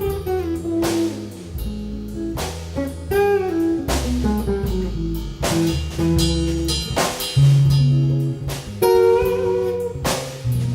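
A band playing an instrumental break between sung verses: a guitar melody over sustained bass notes and a drum kit with regular cymbal and drum hits.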